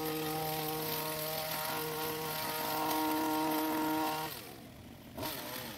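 STIHL pole hedge trimmer's petrol engine running at steady high revs, dropping to a lower idle about four seconds in, then revving back up near the end.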